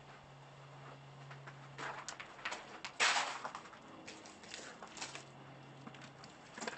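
Footsteps on scattered debris and rubble: irregular crunches and scrapes, with one louder crunch lasting about half a second about three seconds in.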